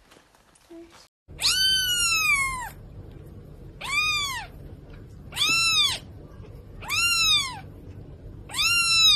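Young kitten meowing: five loud, high meows about every second and a half, each rising and then falling in pitch, starting about a second in over a low steady hum.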